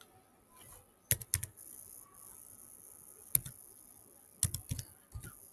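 Computer keyboard being typed on: about eight separate keystroke clicks in short, irregular clusters as a numeric code is entered.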